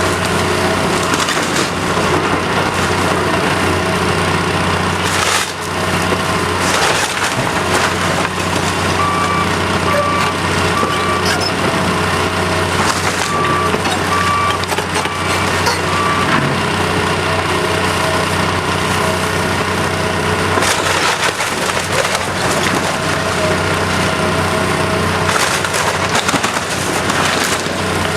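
Wooden house being torn down by heavy machinery: timber cracking, splintering and crashing over the steady running of a machine's engine. A run of evenly spaced beeps sounds in the middle.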